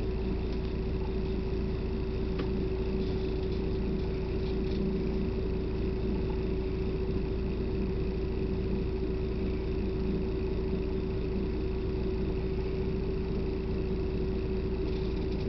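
Steady drone of a bus engine heard inside the passenger cabin, a low rumble with a constant hum and no change throughout.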